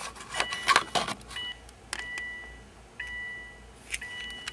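Car's electronic warning chime beeping over and over, a steady electronic tone roughly once a second, with a few light clicks and rattles of parts being handled.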